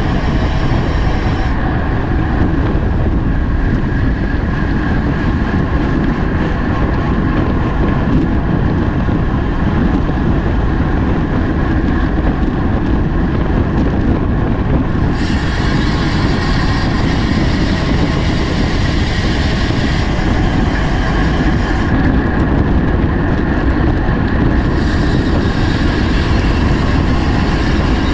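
Steady wind rushing over the microphone of a camera on a bicycle moving at racing speed in a criterium.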